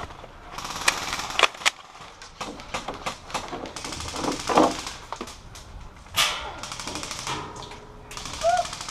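Airsoft guns firing several rapid bursts of fast repeated shots, with short pauses between them.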